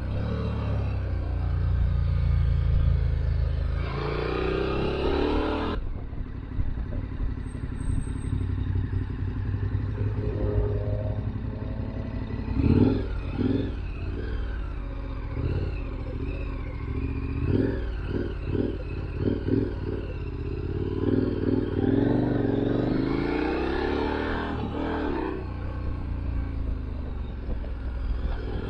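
KTM 1290 Super Adventure R's V-twin engine running under way, its pitch rising as it pulls about four seconds in and again near the end, with a run of short rapid pulses in the middle.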